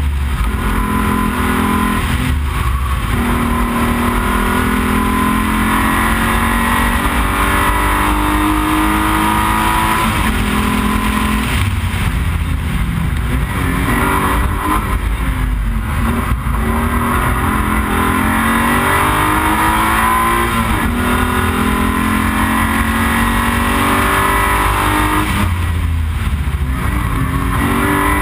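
Alfa Romeo 156 GTA's 3.2-litre V6 at full throttle on a hillclimb run. Its pitch rises again and again as it pulls through the gears, and drops briefly at each upshift and each lift for a bend, over steady road and wind noise.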